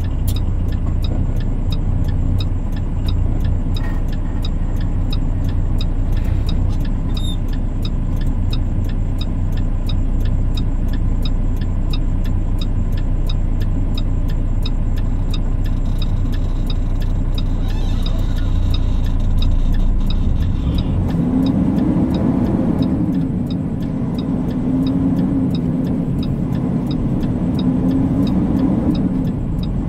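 Tractor-trailer's diesel engine heard from inside the cab, idling with a low steady drone. About 21 seconds in, the truck pulls away and the engine note rises and wavers as it accelerates.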